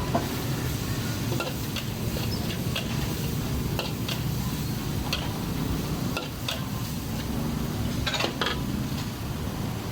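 Stir-frying pad thai in a wok: a metal spatula stirs and scrapes, clinking against the pan about once a second, over a steady low rumble.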